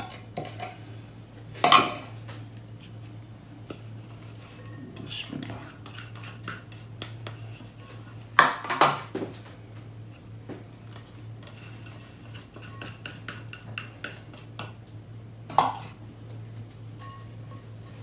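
Small ceramic bowls knocking and clinking against a glass mixing bowl and the table as chopped ingredients are tipped in, with three louder knocks: about two seconds in, about halfway, and near the end. A low steady hum runs underneath.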